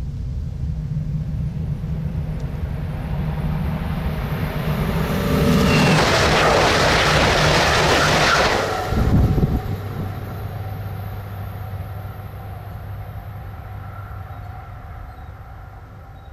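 German ICE high-speed electric train passing at speed: a rumble that builds for several seconds, a loud rushing whoosh of wheels and air as the train goes by, and a short low buffet as the tail passes. The sound then fades away as the train recedes.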